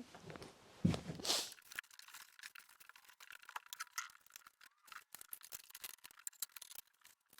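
Faint, rapid clicking and clattering of things being handled and moved around a workshop, sped up, with a louder rustle about a second in.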